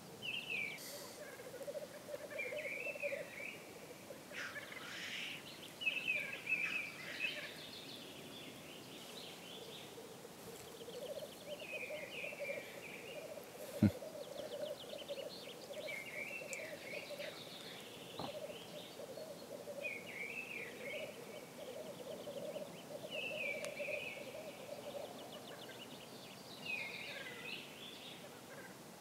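Male black grouse at their lek: a continuous low bubbling coo from the displaying birds, broken every second or two by their short hissing calls. A single sharp knock about halfway through.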